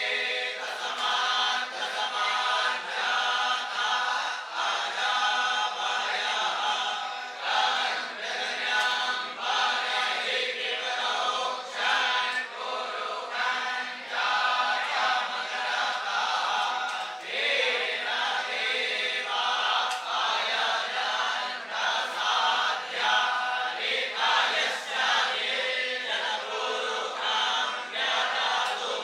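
A group of young Brahmin students chanting Vedic mantras together in unison, with no pauses.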